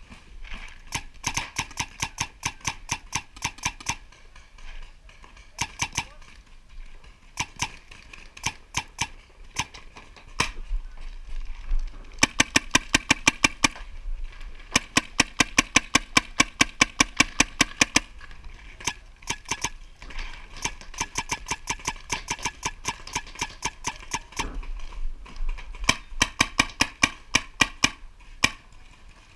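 Paintball markers firing rapid strings of shots, about seven pops a second, in bursts with short pauses between them.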